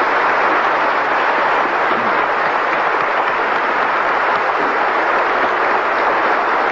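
Steady applause from a large assembly on its feet, many people clapping at once.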